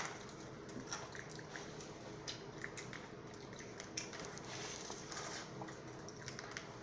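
Faint chewing and biting of fried chicken close to the microphone, with scattered small crunches and mouth clicks.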